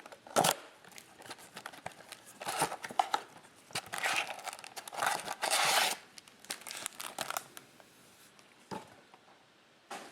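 Plastic packaging crinkling and tearing in irregular short bursts, as a trading-card blaster box and its wrapped packs are opened.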